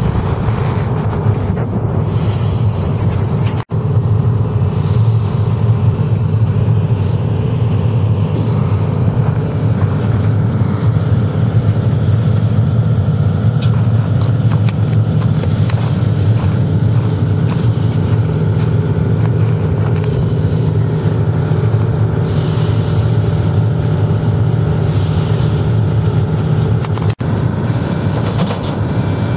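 Link-Belt hydraulic excavator's diesel engine running steadily, a constant low drone. It cuts out for an instant twice, once a few seconds in and once near the end.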